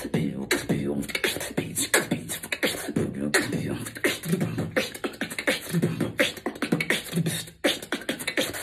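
A man beatboxing: a fast, unbroken run of vocal drum strokes with pitched, hummed notes mixed in.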